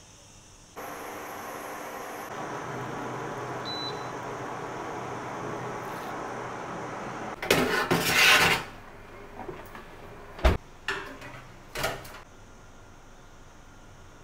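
A steady hiss for about six seconds, then a loud scrape of a metal springform cake tin being pulled off the oven rack, followed by a sharp clunk and a few clicks as it is set down on a baking tray.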